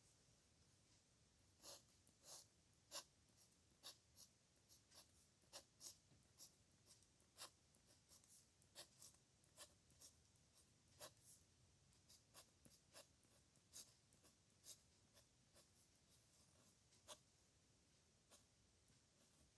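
Pen writing on paper: a faint run of short, irregular scratching strokes that starts a couple of seconds in and stops near the end.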